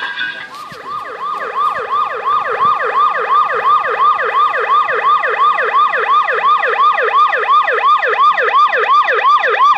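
Fire-engine siren sound effect for a model fire-engine scene: a fast wail that sweeps down in pitch about three times a second, repeating steadily. It starts about half a second in.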